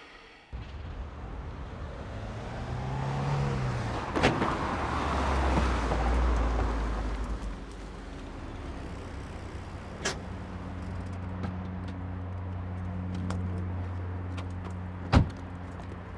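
Car engine running as a car pulls in, then idling steadily with its low hum. Several sharp knocks, the loudest near the end.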